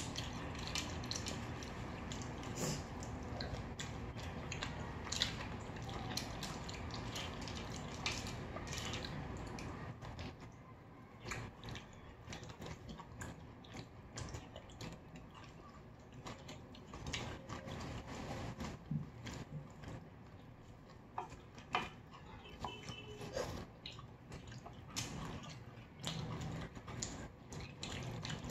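Close-miked eating of clams: wet chewing and slurping with frequent sharp clicks of shells and utensils against the dish. The clicking is busier for the first ten seconds or so, then sparser.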